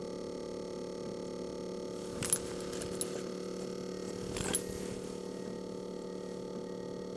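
Stationary diesel air heater running with a steady hum, now lighting properly after its faulty glow plug was replaced. Two brief metallic rattles break in, a couple of seconds in and again about four and a half seconds in.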